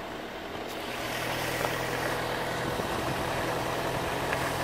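Safari vehicle's engine running as it drives along a dirt road, with tyre and road noise; the sound grows louder about a second in.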